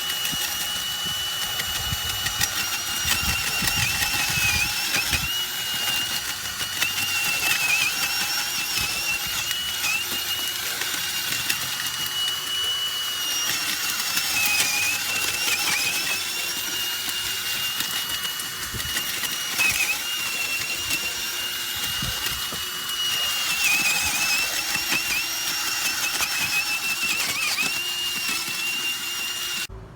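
Power drill turning a garden auger bit into soil, with a steady high motor whine that dips in pitch again and again as the bit loads up and then recovers.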